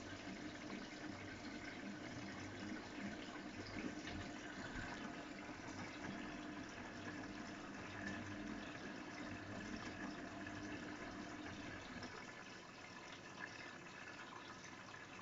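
AEG Öko-Lavamat 693 washing machine running on its 95 °C boil wash, with water running and splashing inside it. A steady hum drops out about twelve seconds in and the sound gets slightly quieter.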